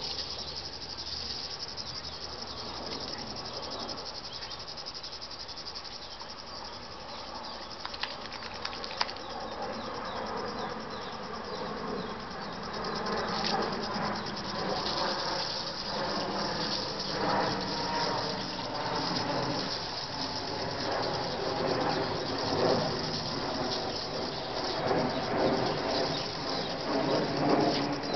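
Steady high-pitched buzzing of summer insects, with water spraying from a hose and a dog snapping and lapping at the jet. The splashing and snapping grow louder and more irregular from about halfway through.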